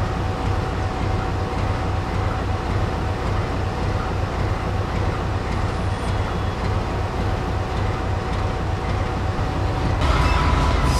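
GE B39-8E diesel-electric locomotive running with a steady low engine rumble and a faint steady whine. About ten seconds in, the engine gets louder and the whine steps up in pitch as the locomotive moves.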